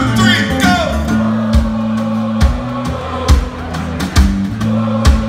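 Live rock band playing an acoustic-style song: strummed acoustic guitars and electric bass over a steady drum beat, with low thumps about once a second, and a man singing.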